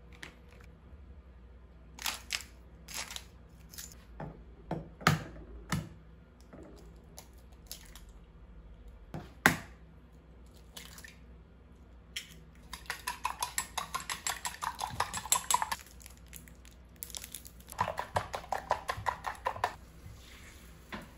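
Kitchen prep sounds: scattered clicks and knocks of utensils against dishes, then two runs of fast, even strokes, about eight a second, each lasting two to three seconds, in the second half.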